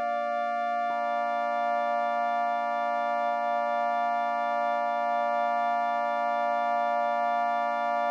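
A steady synthesizer chord held as a drone. A higher note joins with a small click about a second in and is held throughout.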